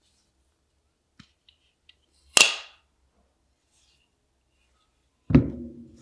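Maxace Titanis folding knife handled: a few faint clicks, then a loud, sharp metallic snap with a brief high ring as the blade is flicked into place. Near the end comes a heavier knock with a lower, longer ring as the knife is set down on the table.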